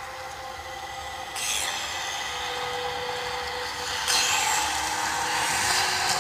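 Snake-like hissing and rasping, a film sound effect, swelling in two surges about a second and a half and about four seconds in, over a faint held musical tone.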